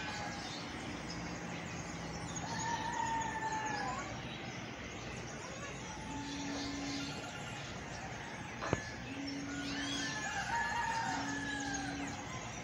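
A rooster crowing twice, a few seconds in and again near the end, each crow about a second and a half long, with small birds chirping in between. A single sharp click about two-thirds of the way through.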